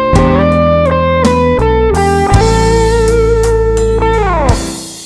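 Live band music led by an electric guitar holding sustained, bent notes over bass and drums. Near the end the notes slide down and the sound fades away.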